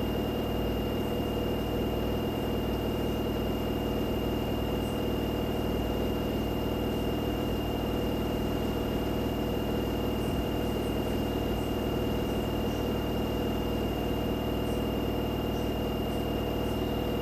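LG direct-drive washing machine drum spinning at high speed on its spin cycle: a steady even hum with a constant high whine over it.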